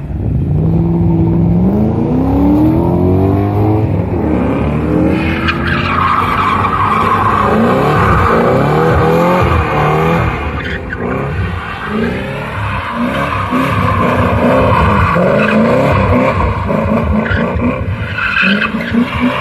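Two BMW cars drifting in circles. Their engines rev, climbing in pitch over the first few seconds, then rise and fall with the throttle, and from about five seconds in the tyres give a long, continuous squeal as they spin and slide.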